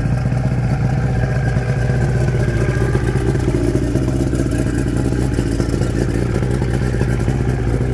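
A 1988 Force 125 hp inline four-cylinder two-stroke outboard with a jet pump and a 2004 Mercury 6 hp four-stroke outboard running together steadily in neutral, with water splashing out of the jet pump onto gravel.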